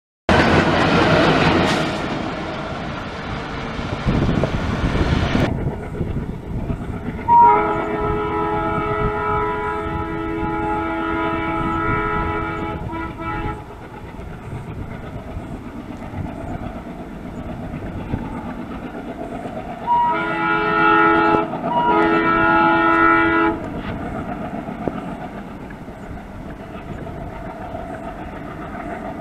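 Multi-tone horn of an Indian Railways WDM3A diesel locomotive: one long blast about seven seconds in, and a second, shorter blast broken by a brief gap about twenty seconds in, over the low steady running of the approaching train. In the opening seconds a loud rushing noise cuts off suddenly.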